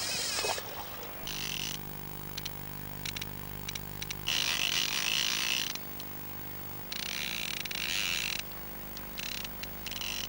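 Fly reel's click-check ratchet buzzing in several separate runs of about a second each as a hooked salmon pulls line off, with a few single clicks between the runs. A splash right at the start as the fish leaps.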